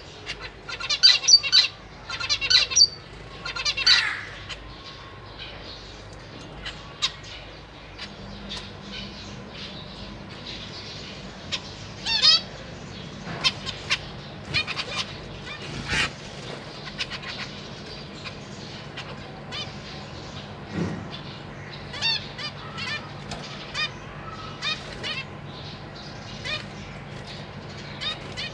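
Zebra finches calling: short nasal beeping calls in quick clusters, loudest in the first few seconds, then scattered single calls, with wings fluttering as birds fly between perches.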